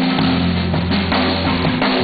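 Small live band playing: drum kit and electric guitar over steady low bass notes, with saxophone in the group.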